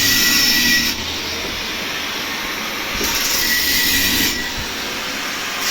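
Metalworking noise in a welding workshop: a steady machine hum with three bursts of high hissing metal noise, each about a second long.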